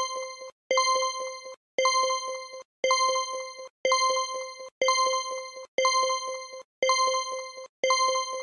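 Quiz countdown timer sound effect: the same ringing tone repeated about once a second, each held for most of a second with quick ticks over it, one tone per second counted off.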